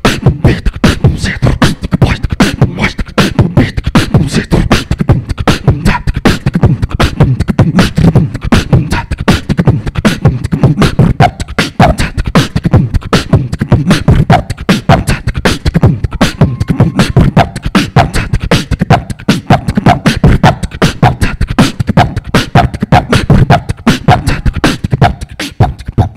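Live beatboxing into a handheld microphone: a fast, unbroken run of mouth-made kick, snare and hi-hat clicks over deep bass sounds. About halfway through, short pitched vocal notes join the beat.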